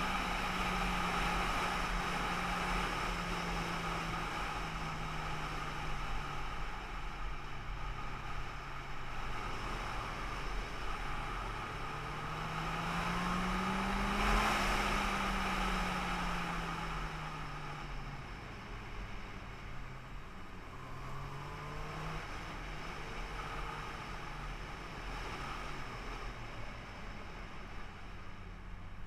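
A vehicle engine on the move, its pitch stepping up and down as it shifts through gears. Near the middle the engine note climbs and then eases off. A steady road and wind noise runs underneath.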